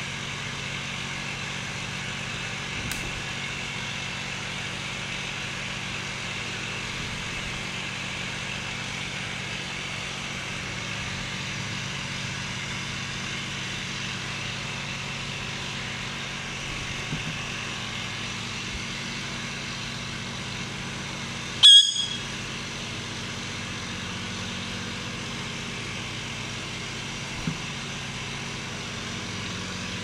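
Steady background drone throughout, with one short, loud, high squawk from an Indian ringneck parakeet about three-quarters of the way in, and a few faint clicks.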